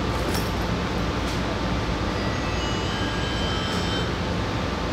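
Steady interior hum of a Kaohsiung MRT metro car standing with its doors closed, from its ventilation and onboard equipment, with a few faint clicks and brief faint high tones about halfway through.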